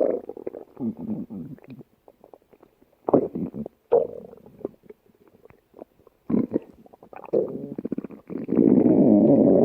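A human stomach growling and gurgling in irregular bursts, ending in a long, loud rumble.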